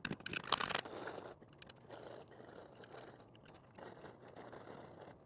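Plastic squeeze bottle of water-soaked gel balls worked against a gel blaster magazine's fill flap: a few sharp clicks in the first second, then faint crinkling and scraping of plastic as the bottle is squeezed and shaken. The gels are sticking in the bottle's nozzle and feed poorly.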